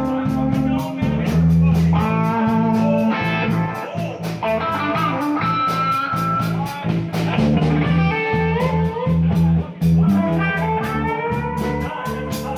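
Blues band playing: electric guitar lead with bent notes over bass guitar and a steady drum beat.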